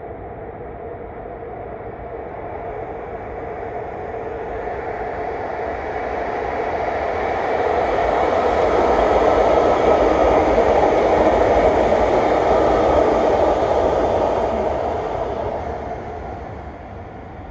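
An electric REM light metro train runs past on an elevated track. Its steady rumble with a faint hum swells to a peak around the middle, then fades as the train moves away.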